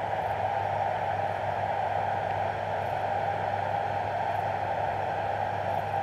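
John Deere C670i combine harvester running steadily while harvesting, a constant even drone with no changes.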